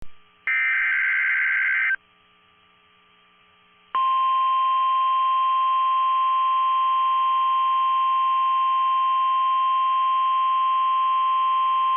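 NOAA Weather Radio Emergency Alert System (SAME) alert: a burst of buzzing digital header data lasting about a second and a half, then, about four seconds in, the steady 1050 Hz warning alarm tone. Together they signal that a warning, here a Severe Thunderstorm Warning, is about to be read.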